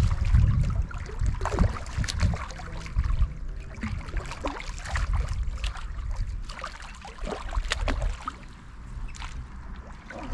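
Irregular splashing and sloshing of water as a hooked sturgeon is played to the bank and brought into a landing net. A low rumble under it eases off after the first few seconds.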